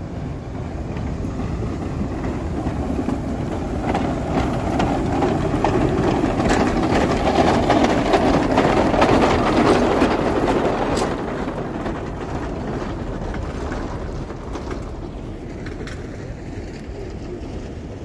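A Shay geared steam locomotive and its train passing by. It grows louder to a peak about halfway through, then fades, with scattered metallic clanks and clicks.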